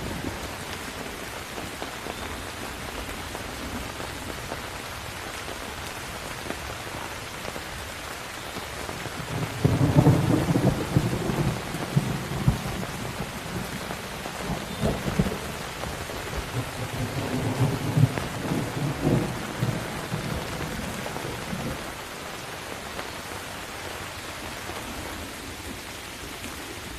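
Steady heavy rain with a thunderstorm. A rolling rumble of thunder starts about ten seconds in, swells several times over about ten seconds, then dies away to rain alone.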